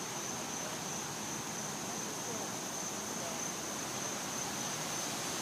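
Insects singing in one steady, high-pitched drone over a background hiss.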